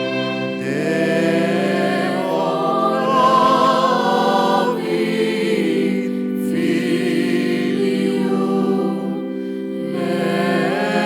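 Choir singing a motet in long, held chords that move from one to the next, swelling about three seconds in and softening near the end before the voices rise again.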